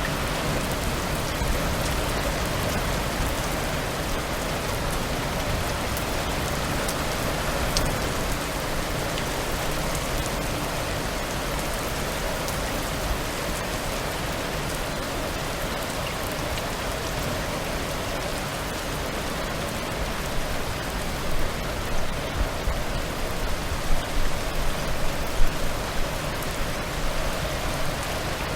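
Heavy rain falling steadily, a dense even hiss, with a cluster of brief louder spikes in the last third.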